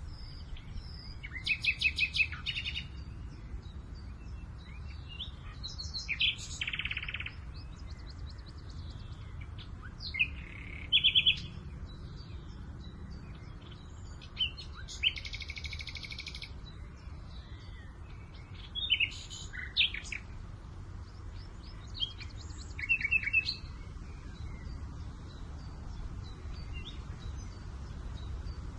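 Several birds singing and chirping in short phrases of rapid, high notes every few seconds, over a steady low rumble of breeze.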